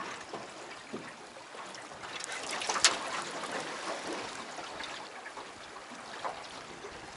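Water trickling and lapping against a small boat, with scattered light knocks and one sharp click a little under three seconds in.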